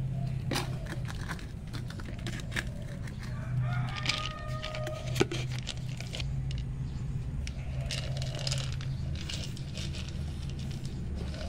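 Scattered sharp clicks and taps as dry cat kibble and a clear plastic jar meet a concrete floor, the loudest about five seconds in. A rooster crows once about four seconds in, over a steady low hum.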